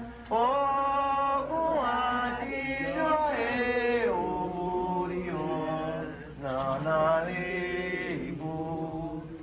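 Voices chanting a song of thanks to Xangô (Shango) together, in sung phrases of a second or two with brief breaths between them and no drum beneath.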